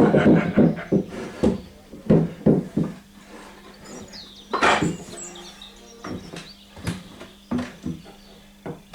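Irregular wooden knocks and clunks, as from boards and beams being handled and set down, over a steady low hum.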